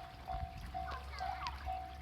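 Japanese railway level-crossing warning bell ringing: a single-pitched electronic ding repeating evenly about twice a second, the signal that a train is approaching.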